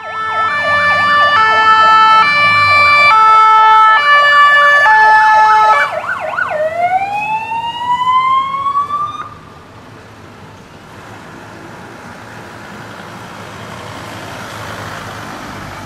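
Fire engine siren sounding a loud hi-lo pattern of alternating tones, then switching to a single rising wail that cuts off about nine seconds in. After it, the quieter, growing sound of a vehicle driving up.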